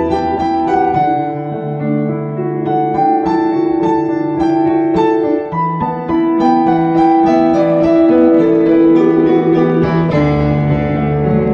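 Instrumental piano music: a melody of struck notes over held lower notes, with no singing.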